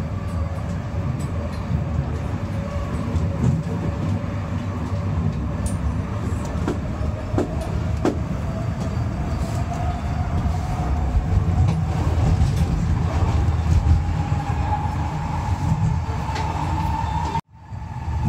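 Steady rumble of a moving vehicle, with a motor whine that slowly rises in pitch and a few scattered clicks. The sound cuts out abruptly for a moment near the end.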